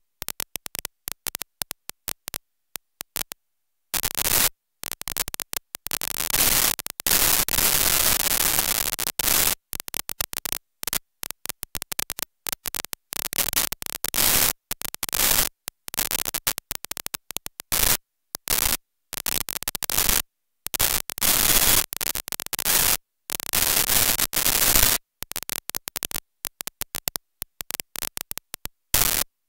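Harsh static hiss spread across all pitches, chopping on and off many times a second with gaps of dead silence between: a glitching, corrupted audio track.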